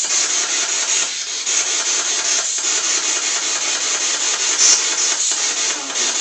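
Loud, steady radio static hiss from a handheld spirit box sweeping through stations, with no clear words.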